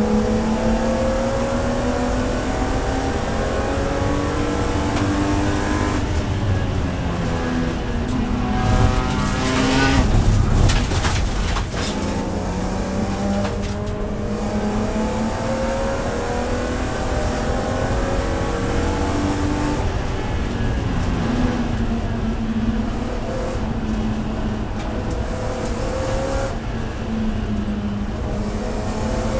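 BMW E46 M3 race car's S54 3.2-litre straight-six heard from inside the cabin, its pitch rising and falling as the throttle is worked. A louder, harsh noisy stretch comes about nine to eleven seconds in.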